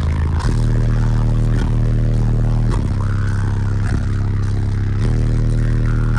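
Eight 12-inch Deaf Bonce car-audio subwoofers playing deep bass notes very loudly inside a truck cab. The bass line steps to a new note about once a second.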